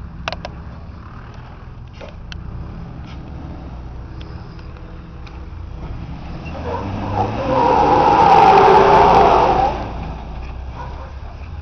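Toyota Land Cruiser 80 series engine running low and steady as it crawls over rock steps, then revving hard for about three seconds from around six and a half seconds in before dropping back. A few sharp clicks just after the start.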